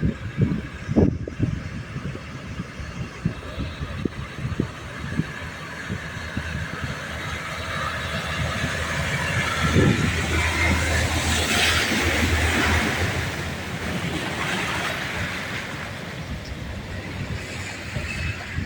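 A motor vehicle passing by: its engine hum and rushing noise build up, peak around the middle, then fade away.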